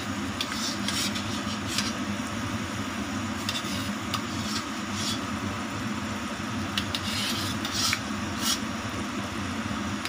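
Water boiling in a stainless steel pot, with a metal skimmer ladle clinking and scraping against the pot several times as Brussels sprouts are scooped out. A steady low hum runs underneath.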